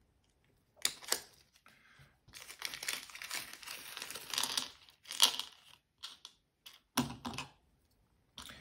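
Small clear plastic parts bag crinkling as it is handled and opened, then a few light clicks as the small black frame standoffs drop out onto the cutting mat.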